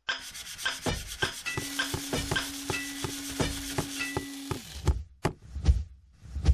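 Sound effect for a logo reveal: quick, regular scraping strokes about four a second, like a hand tool worked over wood, with a steady low hum under the middle stretch. They stop abruptly and are followed by a few sharp knocks.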